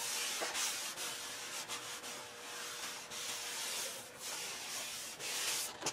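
A bare hand rubbing over the freshly block-sanded body filler and paint of a car fender: a soft, dry, uneven hiss as the panel is checked by feel for smoothness.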